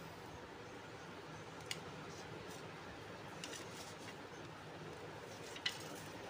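Drawing tools handled on paper: a clear plastic ruler being shifted and set down, with a couple of light sharp clicks, the louder one near the end, over a steady low hiss.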